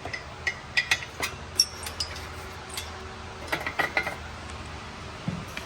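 Metal hand tools clicking and clinking against metal while the exhaust header's 12 mm flange nuts are undone at the cylinder head: a run of sharp clicks, a pause, then another short run.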